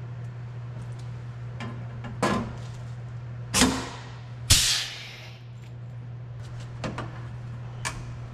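Riveting tool setting rivets: three sharp metallic snaps about a second apart, the last trailing off in a brief hiss, with a few lighter clicks, over a steady low hum.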